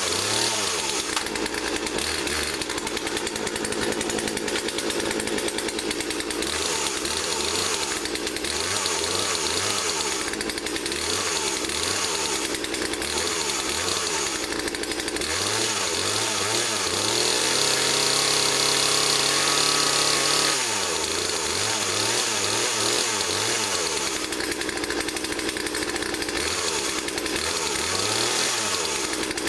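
Poulan Pro PR4218 two-stroke chainsaw running, its engine blipped up and down over and over. About halfway through it is held at high revs for about three seconds, then drops back.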